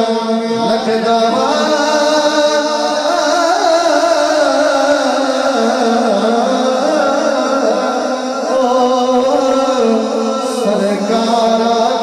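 A man singing a Punjabi naat into a microphone in long, drawn-out melodic phrases over a steady held drone.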